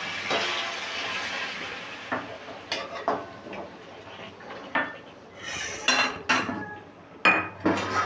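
Metal spatula scraping and clanking against a kadai while stirring a wet curry. A sizzle from the water just poured into the hot pan fades over the first couple of seconds, then the clanks and scrapes come irregularly, the loudest near the end.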